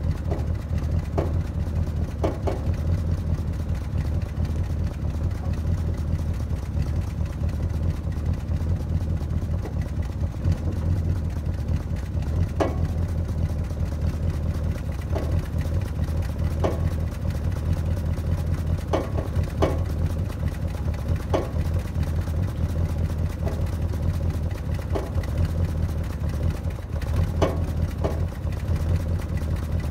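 1966 Plymouth Barracuda's 318 two-barrel V8 running steadily at idle, heard from behind the car at the tailpipe.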